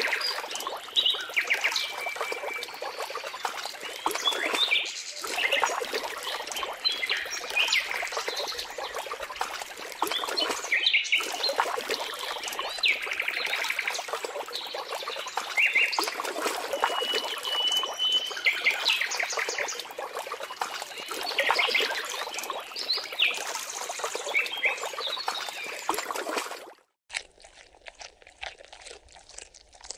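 Crocodiles thrashing and splashing in shallow water, a dense churning of water with many short, high chirping calls over it. About 27 seconds in it cuts off suddenly to a much quieter background.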